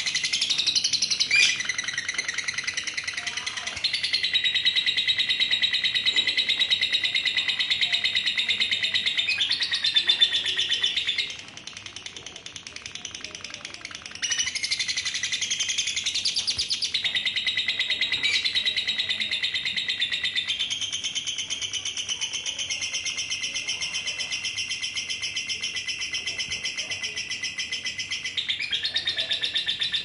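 Female lovebird giving its long, rapid, high-pitched chattering trill, the 'ngekek' song. It breaks off for about three seconds a third of the way in, then starts up again.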